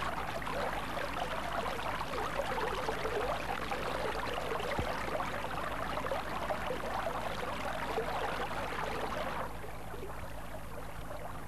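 Water running and trickling, with a steady low electrical hum underneath; the water sound drops away about nine and a half seconds in.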